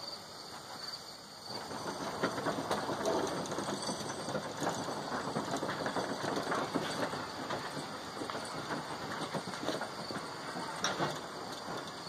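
Steel-wheeled sawmill carriage of an American No. 1 sawmill rolling along its steel track as it is pushed by hand, a rattling rumble with many small clicks, starting about a second in. The carriage is out of its rack gear, so it rolls freely.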